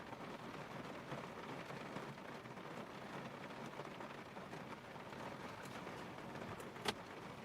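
Rain falling steadily on the car, with one sharp click near the end.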